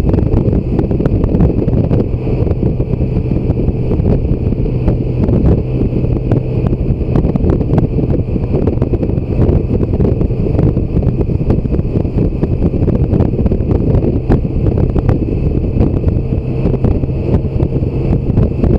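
Wind rushing and buffeting over the microphone of a motorcycle at cruising speed, with the steady drone of a BMW K1600 GTL's inline-six engine underneath.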